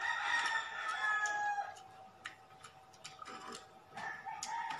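A rooster crowing: one long call that falls slightly in pitch over the first second and a half, and another call starting near the end. Light clicks and taps sound in between.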